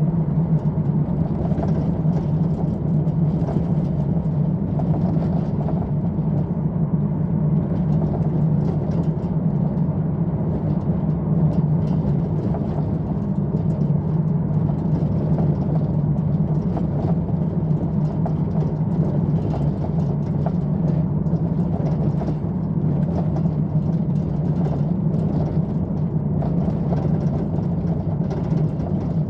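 Inside a moving VW Transporter van: a steady road and engine drone, with frequent light rattles and knocks throughout from the Fabworx Static 1200mm Immix rock and roll bed, a sign of the bed rattling loose in its fittings while driving.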